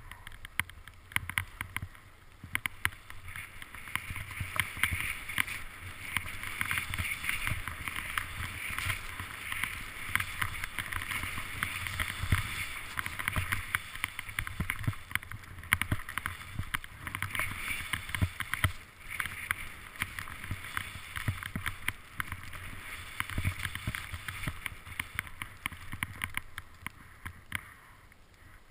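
Skis hissing and scraping over snow while skiing downhill, a steady swish full of small crackles that swells and eases every few seconds, with a low rumble underneath.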